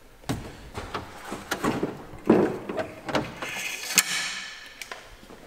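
Hands-on work on car body parts: a string of sharp clicks, knocks and rattles, with a short scraping hiss about three and a half seconds in, ending in a sharp click about four seconds in.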